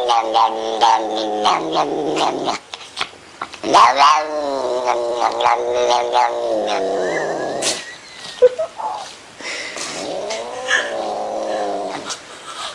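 A cat yowling in three long, drawn-out wails that waver and slide up and down in pitch, with short breaks between them.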